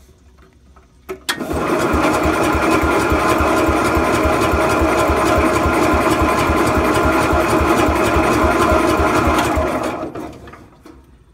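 A 1969 Cub Cadet garden tractor's engine being cranked over by its starter, after a click about a second in, with an even chug of roughly five compression strokes a second. It cranks for about eight seconds without catching and stops: the engine, freshly fuelled after its tank sat bone dry, doesn't want to start.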